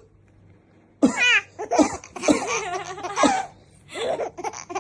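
Young child laughing in a run of short, giggling bursts that start about a second in, laughing at her father's coughing.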